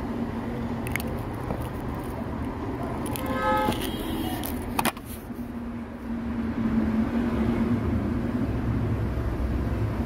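Steady low rumble of road traffic with a vehicle horn sounding briefly about three seconds in, and a few sharp clicks.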